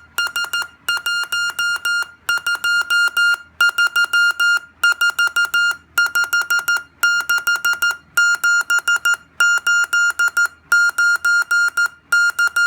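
Morse code tone from a speaker, made by an astable multivibrator oscillator and keyed by a relay from a W65C134SXB board: one steady high-pitched beep switched on and off in short dots and longer dashes, with gaps between characters.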